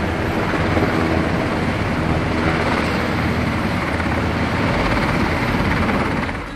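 Navy MH-60 Seahawk helicopter hovering low: steady, loud rotor and turbine noise.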